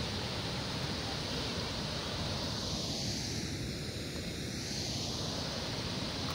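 Reservoir water pouring over the rim of a bell-mouth (morning glory) dam spillway and falling down its shaft, a steady rushing. The water spills in by itself because the reservoir is above the rim level.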